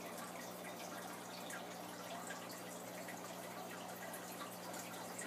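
Aquarium filter running: faint trickling and dripping of water with many small scattered pops, over a steady low hum.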